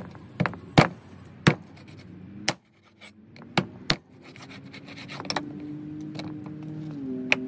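Meat cleaver chopping through raw chicken pieces onto a plastic cutting board: six sharp chops in the first four seconds, then one more near the end. Background music with held notes comes in over the second half.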